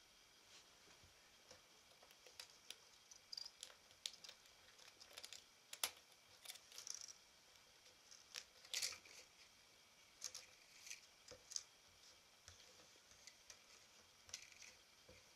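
Faint, irregular clicks and rustles of 8 mm film being handled and pulled out of the threading path of a Bauer T10 S projector. The sharpest click comes about six seconds in, and a short cluster of rustling follows near nine seconds.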